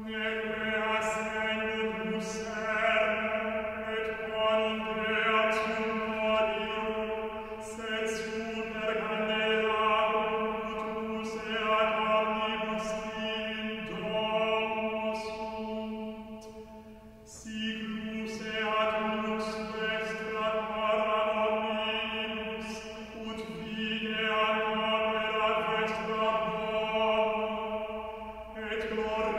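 Chant-like choral music: voices holding long, steady notes over a low sustained tone, with short hissing sounds about once a second. It fades briefly a little past halfway and then comes back in.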